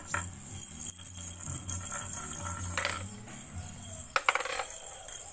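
Glass marbles clinking and clicking against hard surfaces: a handful of sharp clicks spread through, with a cluster a little after four seconds. Background music plays underneath.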